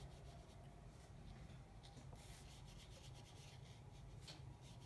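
Near silence: faint rubbing of a paintbrush stroking wet paint onto paper, over a low steady room hum.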